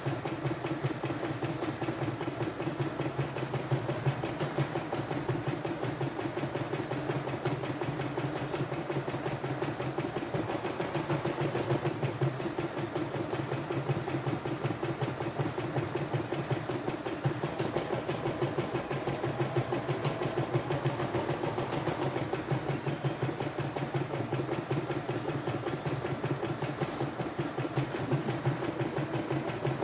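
CNY E960 portable embroidery machine stitching out a design: a steady, fast clatter of needle strokes over an even motor hum.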